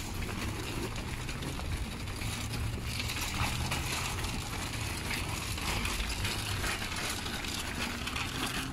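Loaded wire shopping cart rolling and rattling across parking-lot asphalt, over a steady low rumble.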